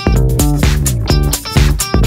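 Background music: a funky track with plucked guitar, bass and a steady beat.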